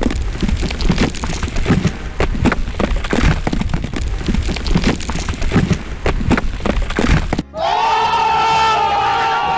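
Cartoon sound effects: a fast, irregular run of cracking and crashing impacts over a low rumble. About seven seconds in, this gives way suddenly to a held high whining tone that rises slightly, then stays level.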